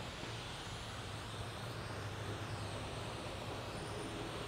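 Steady rushing machine noise with a low hum.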